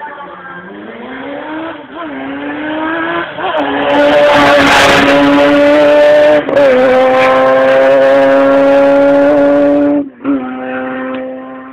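Hill-climb race car accelerating hard up the road, its engine note climbing in pitch and dropping back at each of about three upshifts. It is loudest through the middle, then falls to a fainter, steady note near the end.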